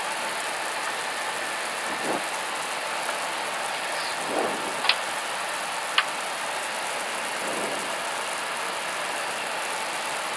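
Steady rushing hiss of an Airbus A320 cockpit on the ground, from the air-conditioning airflow and rain on the airframe, with two sharp switch clicks about five and six seconds in.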